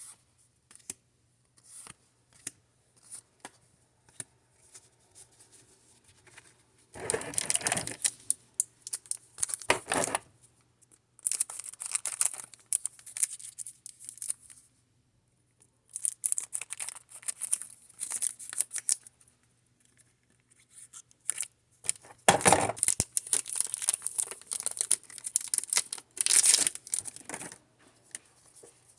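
Pokémon booster pack wrappers being torn open and crinkled by hand, in several bursts of tearing and rustling with short pauses between.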